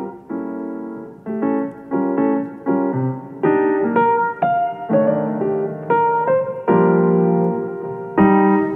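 Background music: a keyboard playing a sequence of chords, a new chord struck every half-second to second.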